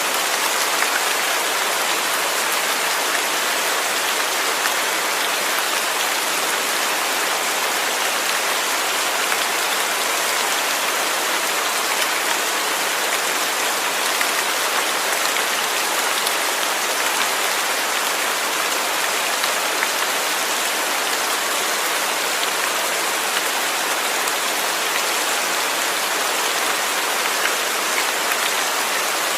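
Steady rain falling, an even hiss of many raindrops on a surface, unchanging throughout.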